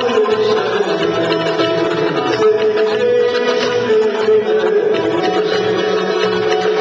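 Turkish Teke-region folk dance music, a plucked string instrument and drum playing a steady dance tune, with a held melody line over a regular beat.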